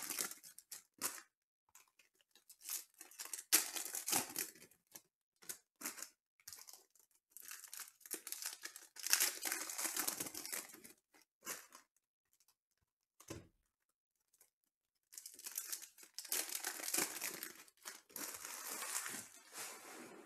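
Foil trading-card pack wrapper crinkling and tearing, with the cards inside rustling as they are pulled out and handled, in several irregular bursts with a brief lull near the middle.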